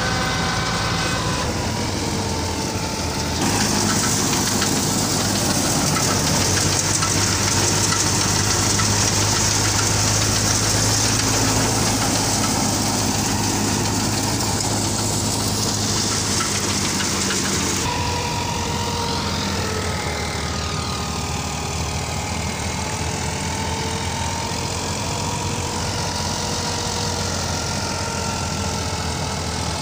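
Massey Ferguson 240 tractor's three-cylinder diesel engine running steadily under load, driving a wheat thresher through its PTO shaft, the thresher turning with it. From about 3 s to about 18 s a loud hiss joins in, from threshed grain and chaff pouring out of the thresher.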